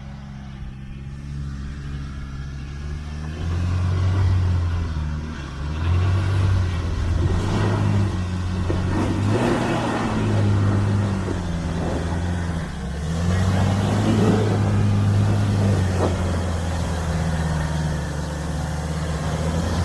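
Nissan Navara pickup's engine pulling hard up a steep rocky climb, the revs surging and easing several times, with a few sharp knocks mixed in.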